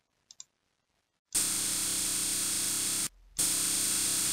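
A faint mouse click, then the Swansoft CNC lathe simulator's machine-motion sound effect, a steady hissing hum, as the simulated axes travel to their reference position. It plays for about two seconds, stops briefly, and plays again for about a second.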